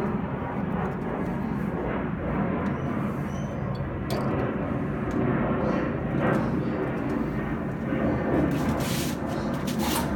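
Electric drill spinning a cylinder hone up and down the bores of a Toyota 4E-FTE engine block, a steady grinding whirr as the stones scratch a fresh crosshatch for new piston rings to bed into, with a few sharp clicks near the end.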